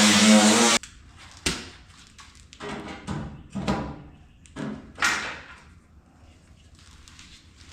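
A motorised tool running steadily stops abruptly under a second in, followed by a handful of separate knocks and clunks of metal work in the shop.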